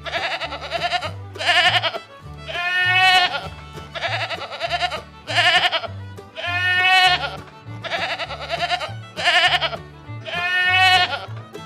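Sheep bleating with a quavering voice: a set of three bleats, a long one, a short one and a long one, played three times over, above background music with a steady bass line.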